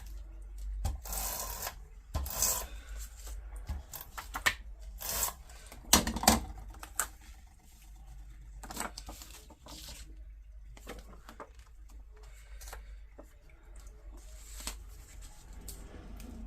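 Paper photos and cardstock being handled and moved about on a desk: irregular rustles, slides and light taps, busier in the first half.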